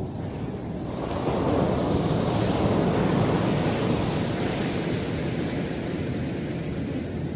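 Sea surf: a wave breaking and washing up the shore, swelling about a second in and slowly easing off, with wind buffeting the microphone.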